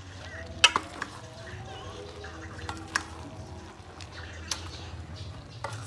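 Metal ladle stirring chopped vegetables in an aluminium pot, with several sharp clinks of the ladle against the pot, the loudest a quick double about half a second in and others near three seconds, four and a half seconds and the end.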